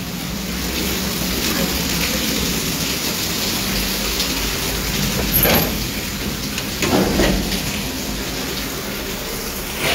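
Heavy rain falling steadily, with a few short scuffs over it around the middle and near the end.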